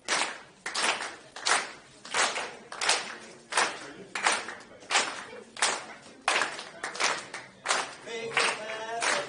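Hand claps keeping a steady beat, about one clap every 0.7 s. Voices begin singing near the end.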